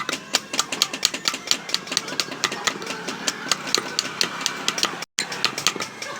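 Rapid hammer strikes on metal, about five a second, each with a short ring. The strikes soften in the middle and the sound drops out briefly about five seconds in.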